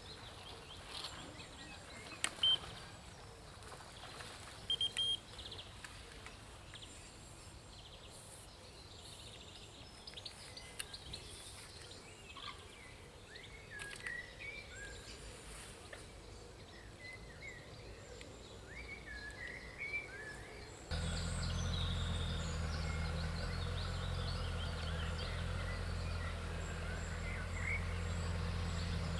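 Birds singing and calling around a lake, with a couple of short high beeps about two and five seconds in. About twenty seconds in the sound changes abruptly to a steady low rumble under the birdsong.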